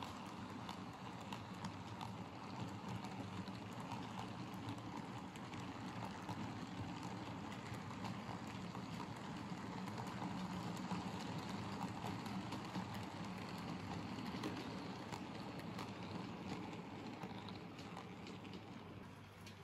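Model railway freight train of tank wagons rolling past on the track: a steady rumble of the wheels on the rails with light irregular clicking, easing off near the end as the last wagon goes by.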